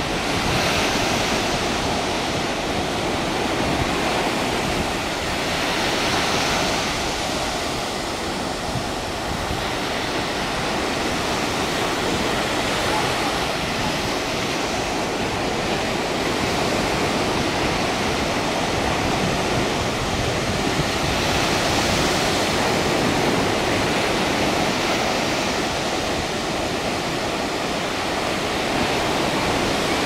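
Ocean surf breaking and washing up a sandy beach, a steady rush that swells louder every several seconds as waves crash, with wind buffeting the microphone.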